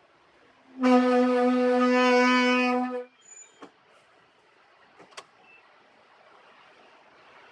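Car disc brakes with Bosch ceramic pads letting out a loud, steady, low honking moan for about two seconds, followed by a few faint clicks. It is the abnormal noise these pads make while still cold just after the car has been started.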